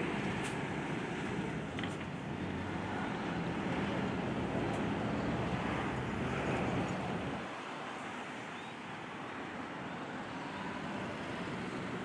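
Steady low rumble of distant road traffic, easing off about seven seconds in.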